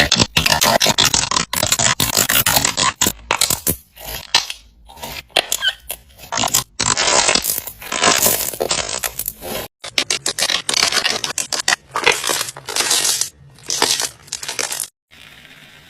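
Slime being squeezed and pressed by hand, crackling and popping in repeated bursts with short pauses between them. The sound stops abruptly about a second before the end.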